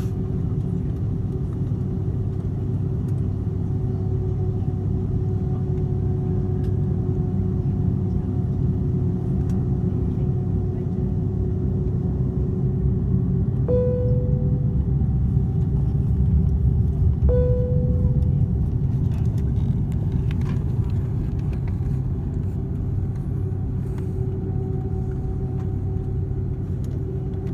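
Airliner cabin noise while taxiing: the jet engines run as a steady low rumble with a held hum. Two single cabin chimes sound about halfway through, a few seconds apart, each fading over about a second.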